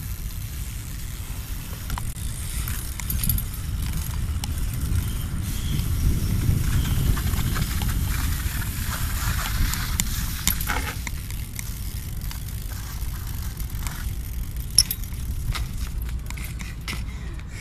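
BMX bike riding on stone paving: a steady low rumble of tyres rolling, light metal rattles from the bike, and scattered clicks, with one sharp clack about fifteen seconds in.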